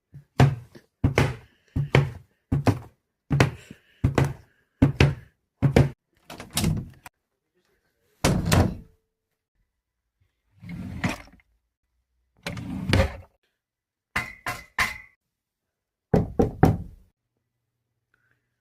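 A series of short knocks and thuds: about ten in quick succession over the first seven seconds, then a few more spaced out with silences between.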